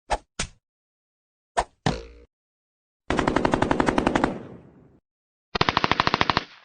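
Gunfire sound effects: two pairs of single shots, then two rapid bursts of machine-gun fire, the first trailing off as it fades.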